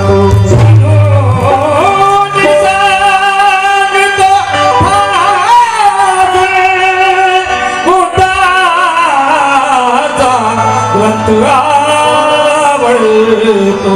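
Music: a Marathi Bhim geet, with a male voice drawing out long, gliding melodic phrases over instrumental accompaniment and a steady low bass.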